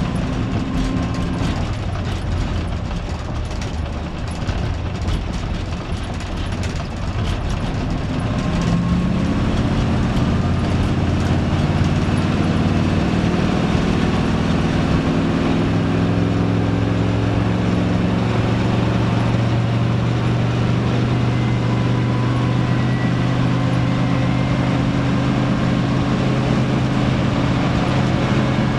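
Cabin sound of a 1956 Chrysler Windsor wagon's 354 Hemi V8 driving on the highway, with engine drone and road noise. About eight seconds in, the engine note rises and grows louder as the car picks up speed. It then holds a steady hum at cruising speed, around 70.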